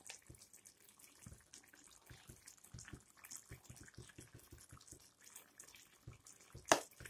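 Faint bubbling and popping of chicken simmering in oil and its own juices in a steel kadhai, a string of small irregular pops, with one sharper click near the end.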